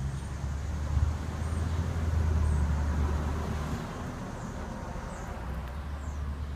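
Low rumble and tyre hiss of a passing motor vehicle, swelling about two seconds in and then fading.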